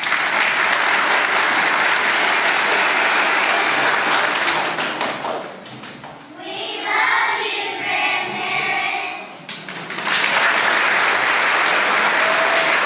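Audience clapping, with a few seconds in the middle when the clapping dies down and a group of voices is heard, before the clapping starts up again.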